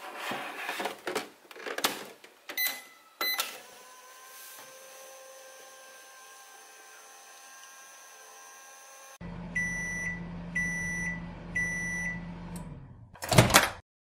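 Pink Just Like Home toy microwave being operated: clicks of the door closing and the buttons, two short beeps, then a faint steady running hum. A louder low hum follows with three beeps about a second apart, and a loud clunk near the end as the door is opened.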